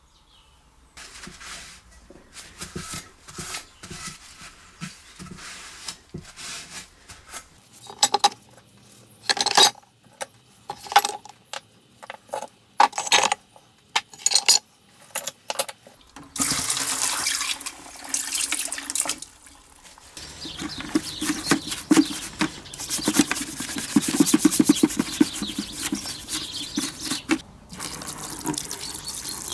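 Metal engine parts clinking and knocking against each other as they are handled in a plastic bucket, then, about halfway through, water poured from a bottle splashing into the bucket over the crankshaft.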